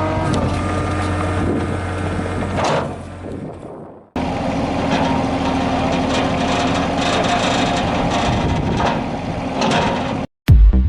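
Yanmar VIO20-1 mini excavator's diesel engine running, its pitch rising right at the start as it speeds up, then fading away over the next few seconds. After an abrupt break about four seconds in, the engine runs again at a steady speed with a rougher mechanical clatter.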